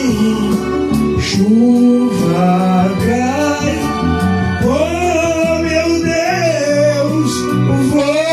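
A man singing a slow romantic song over instrumental backing, holding one long note with vibrato in the middle.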